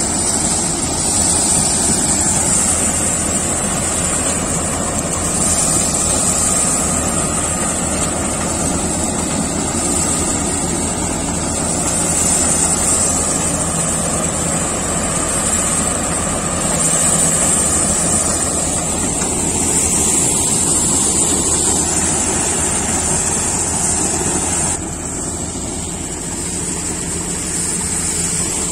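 Combine harvester running steadily under load as it threshes heaped soybean plants, its engine hum mixed with the churning of the threshing works and a steady high whine. The sound drops slightly and changes character near the end.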